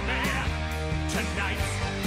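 Rock music with a steady drum beat, bass and guitar.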